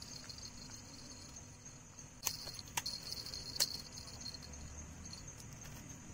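Three sharp clicks, about half a second to a second apart, over a steady high-pitched hiss.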